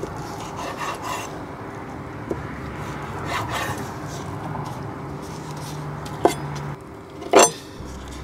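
Chef's knife slicing raw chicken thighs on a wooden cutting board: soft rasping strokes through the meat and a few sharp taps of the blade on the board, the loudest tap about seven seconds in. A low steady hum runs underneath and stops shortly before that.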